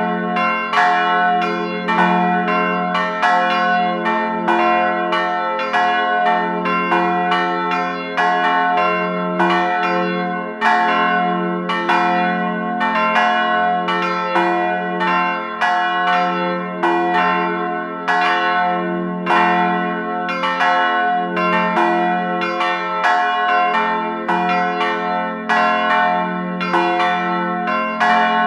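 Church bells ringing a continuous peal, struck about twice a second, each stroke ringing on into the next.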